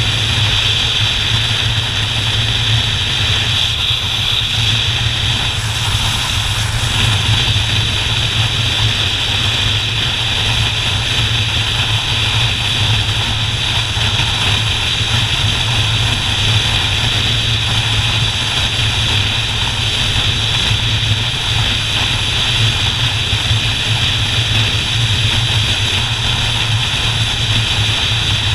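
Motorcycle engine running at a steady cruise, a constant low drone under a steady rush of wind and road noise.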